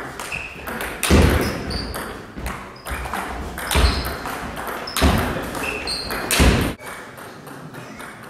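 Table tennis rally: the ball clicking and pinging off the table and bats in quick succession, with several louder thumps among them.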